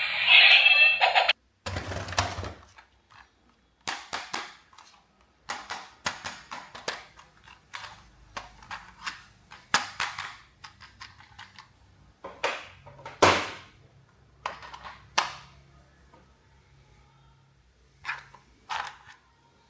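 Music cutting off about a second in, then irregular sharp clicks, snaps and knocks of plastic toys being handled, a few of them louder, with short pauses between.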